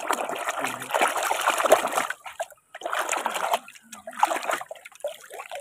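Water splashing and sloshing in a metal basin as a hand scrubs a plastic toy car under the water: one long bout, then three shorter ones.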